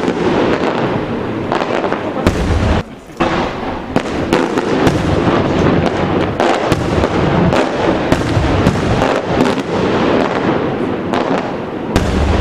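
Aerial fireworks shells bursting, a dense run of many rapid sharp reports, with a heavy low boom a little over two seconds in, a brief lull just after it, and another boom near the end.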